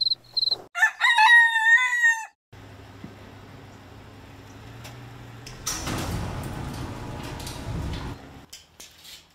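A rooster crowing once, loudly, about a second in, after a few short high chirps of crickets. Then a low steady hum, and a louder rush of noise from about six to eight and a half seconds.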